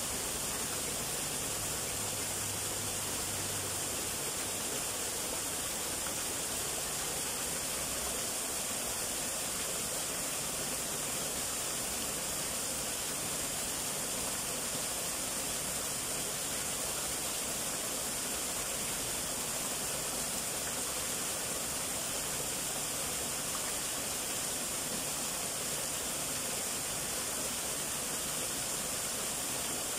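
Small waterfall, two thin streams splashing steadily into a shallow rock pool: an even, unbroken rush of falling water, high and hissy.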